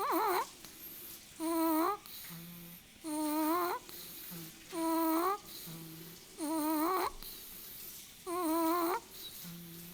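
Snoring in a steady rhythm, each breath a high, wavering, Donald Duck-like squawk, six times about every second and a half, with a softer low hum between some of them.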